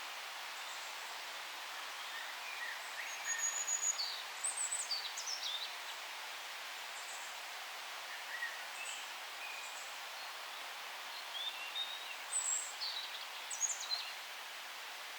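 Forest birds chirping over a steady background hiss of forest ambience: two bouts of short, high chirps and quick falling notes, one a few seconds in and another in the second half.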